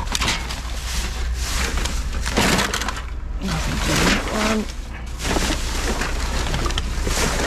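Black plastic garbage bags and plastic takeaway containers rustling and crackling in repeated bursts as gloved hands shift them around.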